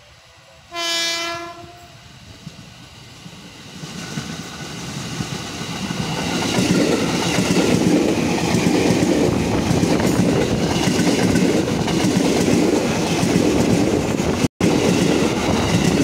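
Electric commuter train of the JR 205 series gives one horn blast about a second long, then approaches and passes close by. The rumble of its wheels on the rails builds up and is loud and steady from about six seconds in. The sound cuts out for an instant near the end.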